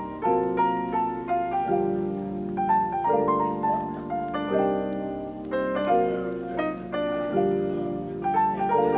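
Background music: a gentle piano piece with steady chords and a simple melody line.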